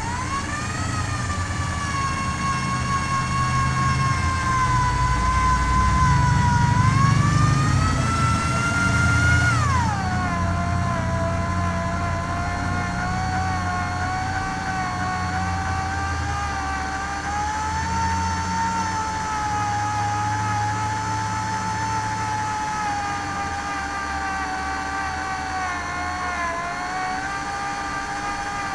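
Handheld electric drill boring a pin hole through a knife's unhardened steel tang, the motor whining steadily. The pitch rises for a couple of seconds, drops sharply about ten seconds in, then wavers as the drilling pressure changes.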